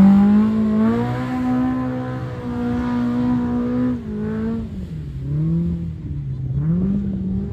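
Side-by-side UTV engine revving hard off the line and holding high revs for about four seconds, then dropping off and revving up and down twice as it works through the mud.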